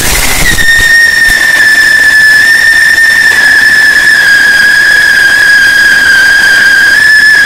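Whistling flower-pot ground fountain firework spraying sparks with a loud, steady shrill whistle over a hiss, holding one pitch for the whole time.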